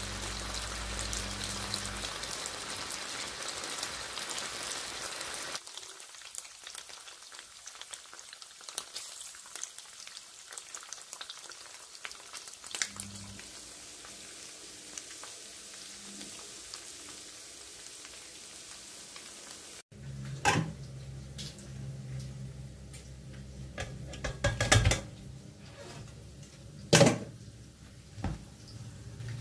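Diced smoked bacon and sliced sausages sizzling in a frying pan, with occasional small clicks; the sizzle is louder for the first five seconds or so, then softer. About twenty seconds in the frying sound stops and a few sharp knocks and clinks follow over a low hum.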